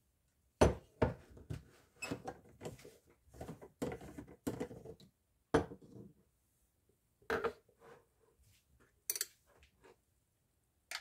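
Knocks and clinks of a blender jar and glass jars being handled and set down on a wooden counter, in irregular separate strikes, with a denser run of small clatters in the middle.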